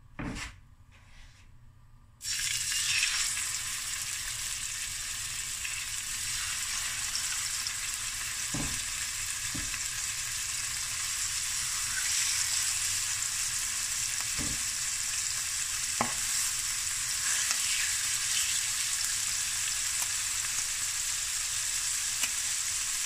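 Boneless chicken thighs sizzling in hot oil in a stainless steel frying pan. The sizzle starts suddenly about two seconds in, as the first piece goes into the pan, and then runs steadily. A few light knocks of a fork against the pan break through it.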